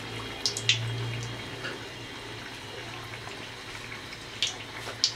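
Hot oil sizzling and bubbling steadily around a rice-flour and date-jaggery pitha deep-frying in a pan, with a few sharp clicks about half a second in and again near the end.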